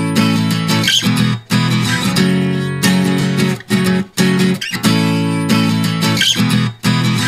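Background music with a strummed acoustic guitar.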